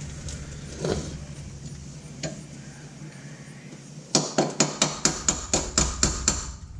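A hammer striking metal: a couple of single knocks, then about two thirds of the way in a quick, steady run of sharp blows, about five a second.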